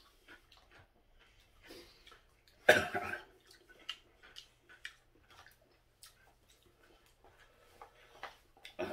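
Eating sounds of jajangmyeon noodles: soft chewing and small clicks of wooden chopsticks against a plastic takeout bowl. One loud cough comes about three seconds in.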